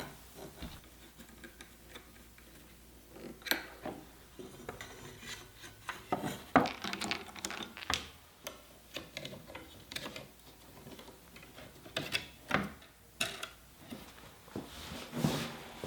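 Parts of a Soss router guide jig being handled and fitted together: irregular clicks, knocks and rubbing of hard parts, coming in small clusters.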